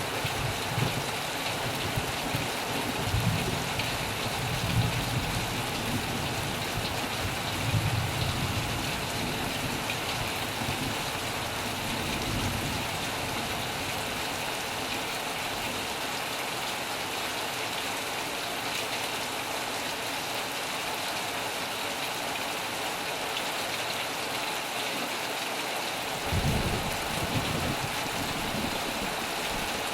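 Steady heavy rain. Low rumbles of thunder come through it several times in the first nine seconds or so and once more near the end.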